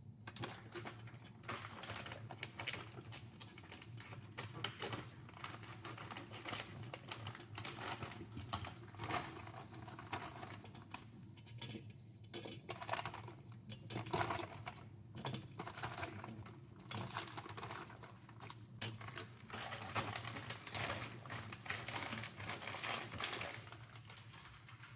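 Tomato soup in a pot on the stove near the boil, crackling and bubbling irregularly over a steady low hum.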